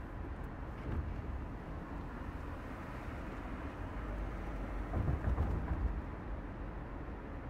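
City street traffic: a steady low rumble of vehicles, swelling louder about five seconds in as a vehicle goes by.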